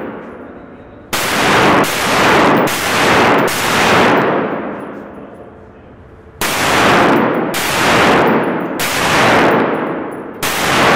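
AR-15-style rifle firing single shots, each ringing out in a long echo off the concrete bay. There is a string of four about three-quarters of a second apart, a pause of about three seconds, then another string of shots.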